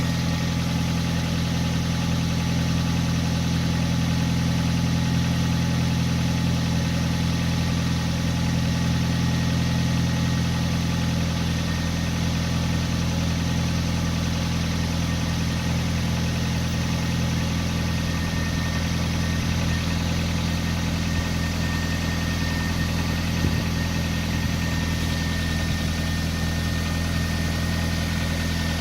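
Car engine idling cold with a steady high whistle over the idle, heard only when the engine is cold.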